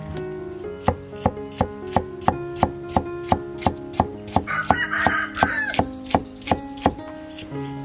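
Kitchen knife chopping through a red pepper onto a wooden chopping board, in a steady run of sharp strokes about three a second that stops about seven seconds in.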